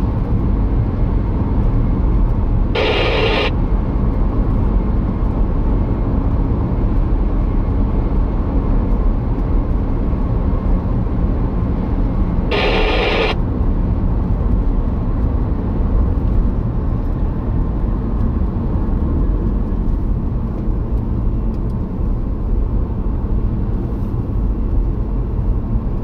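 A car driving at road speed, heard from inside: a steady low rumble of engine and tyres on the road. Two brief hiss-like sounds come about 3 s and 13 s in.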